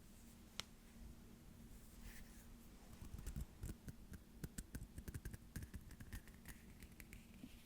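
Quiet ASMR hand sounds close to the microphone: a single sharp click about half a second in, then a quick run of light taps and clicks from about three seconds in until near the end.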